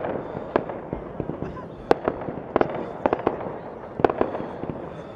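Fireworks going off in quick succession: sharp bangs and reports, several a second at uneven spacing, over a continuous background rumble of the display.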